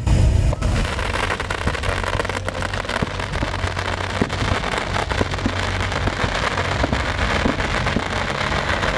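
Fireworks going off: a dense, continuous crackle of many small pops, with a steady low hum underneath.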